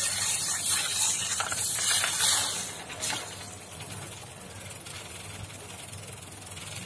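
Water hissing and spraying under pressure as it is forced through an RO membrane housing to flush salt deposits out of the membrane. The loud spray drops off about three seconds in to a quieter steady hiss.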